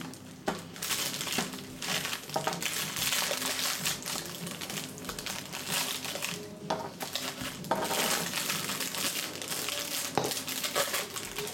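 Thin plastic water bottle being squeezed and crinkled by hand, with irregular crackling that comes in waves and a few sharper clicks.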